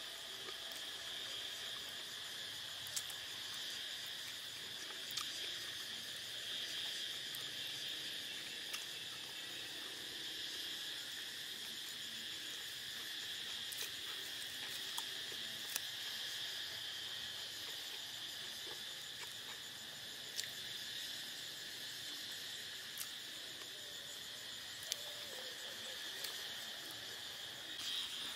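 Steady, high-pitched chorus of crickets chirring without a break, with a few faint sharp clicks scattered through it.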